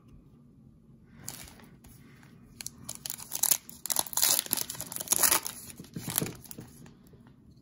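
A 2020 Prizm football card pack's wrapper being torn open and crinkled: a run of crackling rustles that starts about a second in, is loudest in the middle and dies away near the end.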